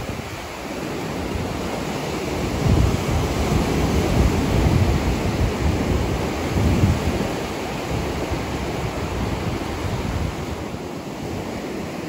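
Ocean surf with wind noise: a steady rush with low rumbling surges. It swells a few seconds in and eases toward the end.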